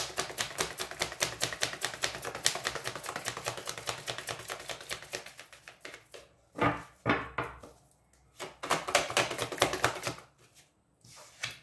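A deck of tarot cards being shuffled by hand: a rapid run of card clicks and flutters for about five seconds that fades, then a few shorter bursts of shuffling with pauses between them.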